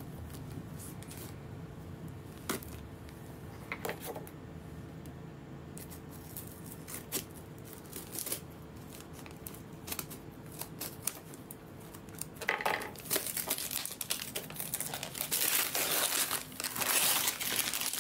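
Gift wrapping on a package being handled and torn open by hand: scattered small rustles and clicks at first, then louder, continuous crinkling and tearing for the last third or so.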